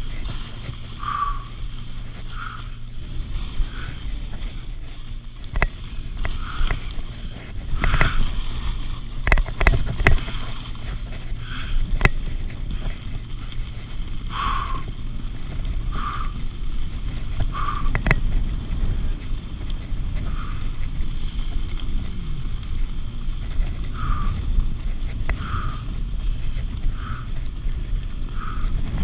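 Wind rushing over the microphone and skis running on packed snow during a downhill run, with short scrapes every second or two and a few sharp clacks.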